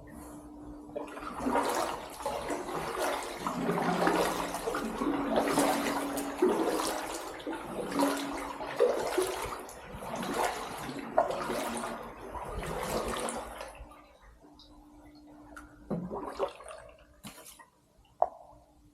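Kayak paddle strokes in canal water: splashing and rushing that surges about once a second with each blade stroke, then eases off about two-thirds of the way through, leaving a faint steady hum and a few small splashes and knocks.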